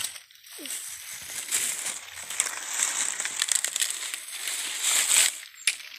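Footsteps crunching through dry leaf litter and brushing through undergrowth, with a steady run of small crackles from leaves and twigs.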